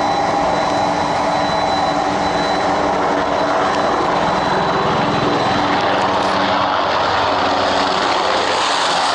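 Navy H-60 Seahawk helicopter flying by close and low: a steady, loud rotor and turbine engine noise with a thin whine. The sound grows brighter and hissier in the last second or so as the helicopter comes nearest.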